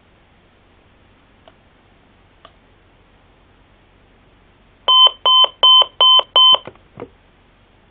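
Lego-brick radio alarm clock's electronic beeper sounding its alarm: five short, loud, evenly spaced beeps at about three a second, followed by a couple of clicks. Two faint clicks come a few seconds before the beeps.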